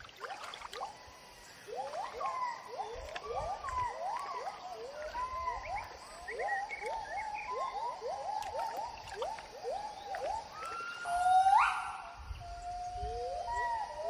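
Gibbon song: a long run of short rising whoops, about two a second. About eleven seconds in, louder drawn-out notes swoop higher.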